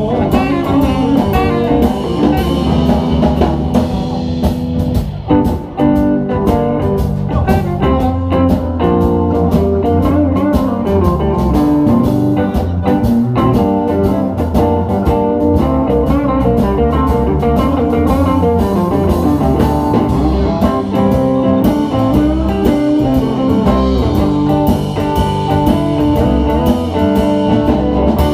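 Live blues-rock band playing an instrumental passage: electric guitar over bass and a drum kit, with no singing.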